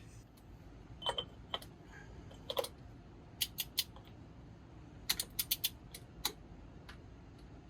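Scattered sharp clicks and taps of hand work on metal parts, with a quick run of about half a dozen clicks about five seconds in.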